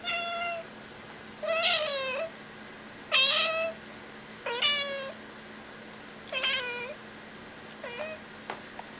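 A domestic cat meowing repeatedly: six separate meows, about one every second and a half, the one near the end shorter and fainter.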